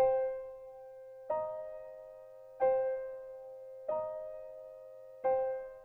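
Background music: slow keyboard notes, a new one struck about every 1.3 seconds and left to fade, five in all.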